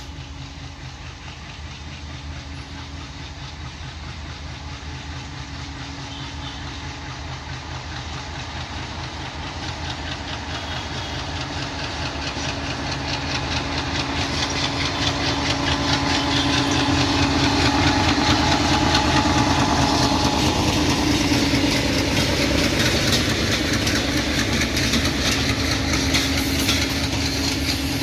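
A DLW-built ALCO-design DL560C (WDM-3A) diesel-electric locomotive hauling a passenger train approaches and passes, its engine drone growing steadily louder over the first half and then staying loud. In the second half the wheels of the passing coaches rattle over the rails.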